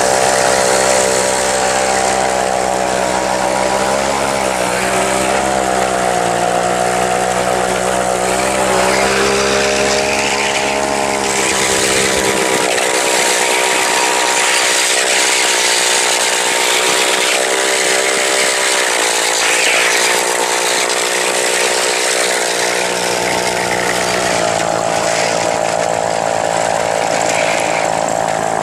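Two-stroke chainsaw engine driving a homemade rail cart along the track, running steadily under load with its pitch wavering slightly up and down.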